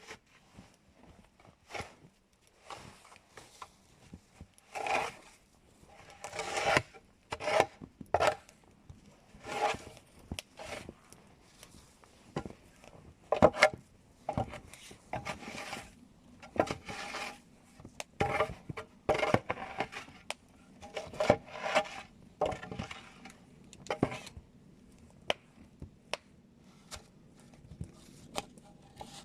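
Wood being worked by hand: a run of irregular scraping and rubbing strokes with pauses between them, some much louder than others.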